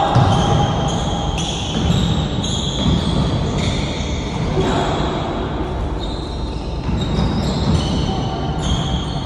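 Basketball game in play: the ball bouncing on the court over steady game noise, with frequent short high squeaks.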